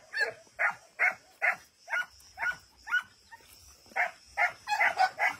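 A dog barking over and over, about two barks a second, with a brief pause a little past the middle.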